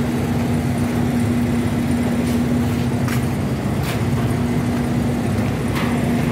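Boom truck engine running steadily, with a few light knocks in the second half.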